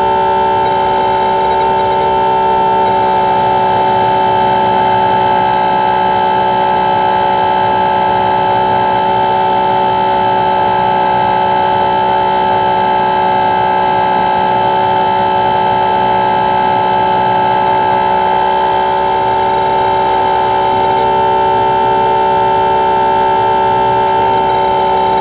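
Electric motor and pusher propeller of an E-Do Model SkyEye RC plane in flight, heard from its onboard camera: a loud, steady whine holding one pitch, with a slight change in tone about three seconds in and again near the end.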